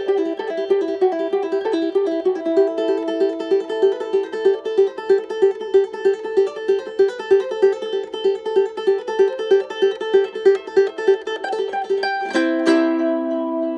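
Flight Victoria Soundwave tenor ukulele fingerpicked, a quick melody of evenly spaced notes at about three a second. Near the end a chord is struck and left ringing.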